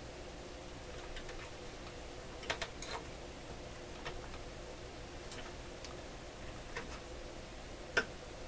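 Irregular small metallic clicks and snips of hand pliers working on wire leads inside a vintage tube radio chassis, the sharpest about eight seconds in, over a faint steady hum.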